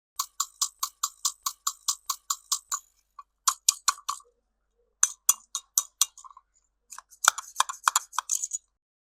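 Rapid, evenly spaced sharp clicks from a toy pretend doctor set, about five a second for nearly three seconds, each with a short ringing ping. Then several shorter, irregular clusters of clicks.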